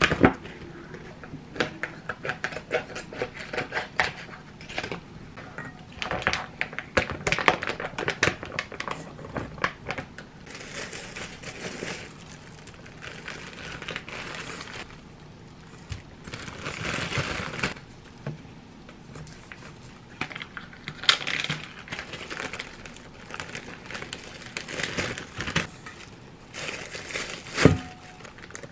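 Plastic packaging and zipper bags crinkling and rustling as they are handled, with quick clicks and taps through the first part, then bursts of rustling. A single sharp knock near the end is the loudest sound.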